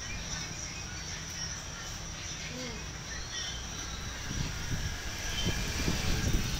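Steady low background hum with a high, even hiss, and some faint, irregular low rustling in the last couple of seconds.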